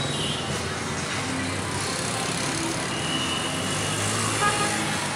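Steady road traffic noise of passing vehicles.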